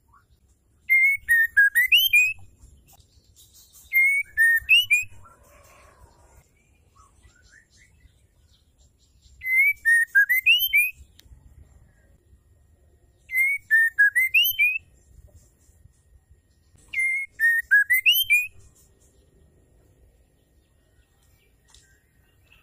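Female white-rumped shama repeating the same short whistled phrase five times, each about a second and a half long, with pauses of a few seconds between. The notes dip and then rise. This is the female's call that keepers use to draw male shamas into song.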